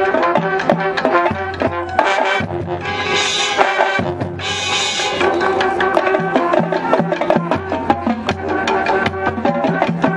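High school marching band playing: brass chords over low held bass notes, with the drum line beating a busy pattern of quick strokes. Two bright cymbal swells come about three and about four and a half seconds in.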